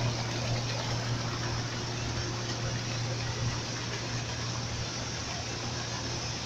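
Steady low hum of a running electric motor on wastewater treatment equipment, with an even rushing noise over it.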